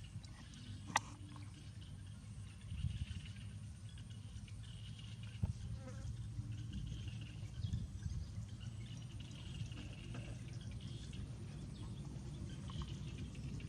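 Insects buzzing, the buzz swelling and fading in waves, over a steady low rumble, with a sharp click about a second in.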